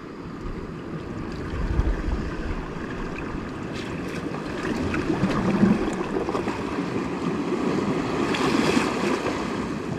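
Sea water washing and splashing against shoreline rocks as a hooked squid is worked at the surface, with some wind on the microphone.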